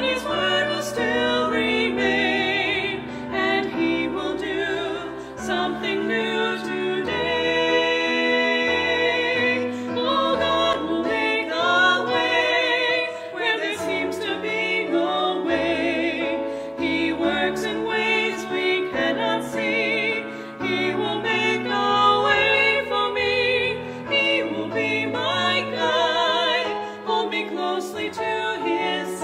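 Two women singing a duet with vibrato, accompanied by a Kawai piano.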